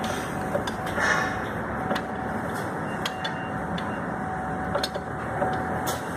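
A steady background rumble with scattered light clicks and taps, as of small parts being handled.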